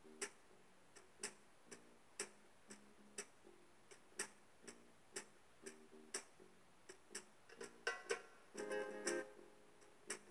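Opening of a live band's song: a sharp percussive click about twice a second keeps time over soft low notes, then acoustic guitar strumming comes in about eight seconds in.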